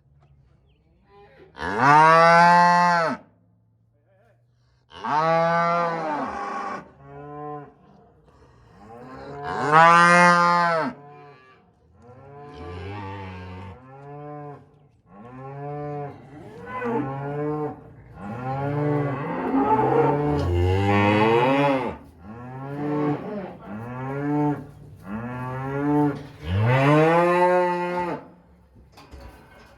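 Cattle mooing over and over, with several animals calling over one another. Two long, loud moos come first, then from about twelve seconds in a near-continuous run of shorter moos that overlap.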